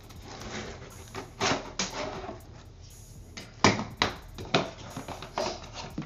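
Cardboard box of a Fluidmaster toilet fill valve being opened and handled: a string of sharp papery rustles and knocks from its flaps and packaging, loudest about a second and a half in and again near the middle.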